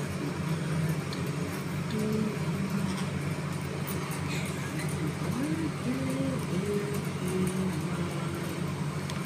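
A steady low hum runs throughout, with faint, brief voice sounds over it here and there.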